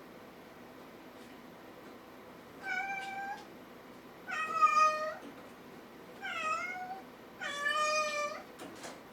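A kitten meowing four times, high-pitched calls of under a second each, the last the longest.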